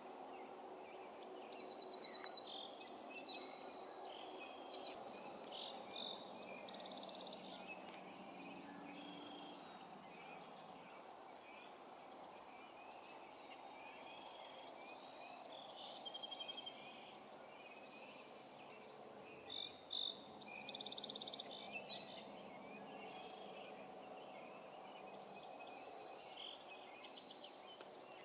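Several songbirds singing a dawn chorus of short chirps and rapid trills, the loudest trills about two seconds in and again around twenty seconds, over a steady low background hum.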